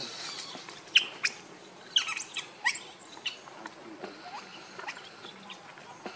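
Baby macaque crying in short, high-pitched squeaks, several in quick succession in the first three seconds, then fainter ones.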